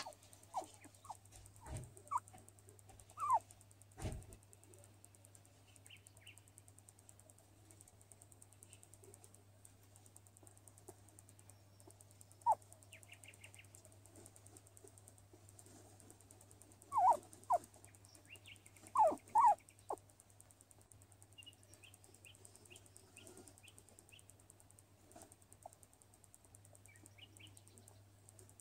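Skinny pig (hairless guinea pig) giving short, scattered squeaks, single and in quick pairs, with the loudest group about two-thirds of the way through.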